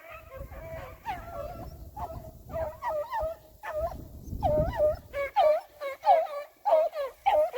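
Hunting dogs giving tongue, a run of short high yelping calls that come faster and louder in the second half, about two a second. A low rumbling noise lies under the first few seconds.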